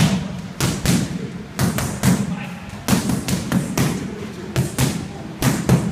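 Boxing gloves smacking into focus mitts in quick combinations, about fifteen sharp strikes in runs of two to four.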